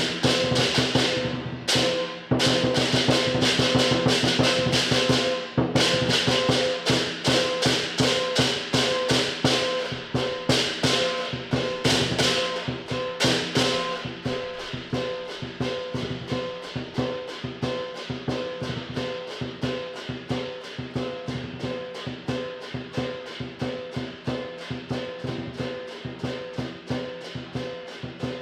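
Southern lion dance percussion: the lion drum beating fast with clashing cymbals. The cymbal crashes are loud and dense for the first half, then give way to a steadier, quieter run of drum beats.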